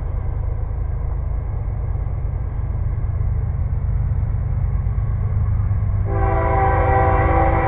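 Approaching locomotive with a steady low rumble underneath; about six seconds in its air horn sounds, a chord of several tones held steadily to the end.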